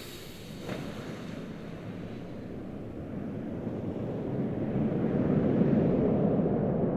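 Jet aircraft's low engine rumble swelling and then starting to fade as the aircraft passes at a distance, with no high whine.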